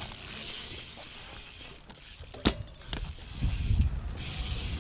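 BMX bike rolling on smooth concrete, its tyres making a low rumble that grows louder near the end as the bike passes close by, with one sharp knock about two and a half seconds in.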